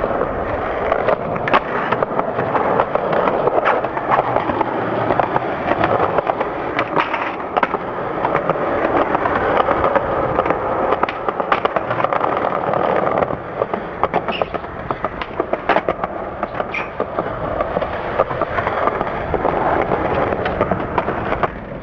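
Skateboard wheels rolling on concrete with a continuous rough rumble, broken now and then by sharp clacks of boards hitting the ground.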